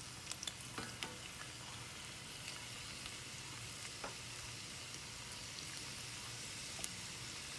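Strips of beef steak frying in butter with onions, bell pepper and garlic: a steady sizzle, with a few light clicks in the first second.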